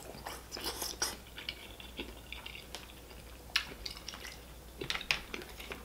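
Close-miked wet chewing and lip smacks of a mouthful of saucy seafood, with scattered short sticky clicks as sauce-covered fingers pick through the seafood.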